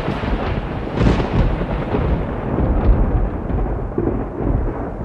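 A deep, noisy rumble that swells and ebbs, heaviest in the low end, its hiss thinning out over the last couple of seconds.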